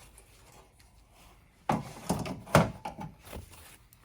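Hands handling cables and parts on the back of a flat-panel display: a few dull knocks and rustling, the loudest knock about two and a half seconds in.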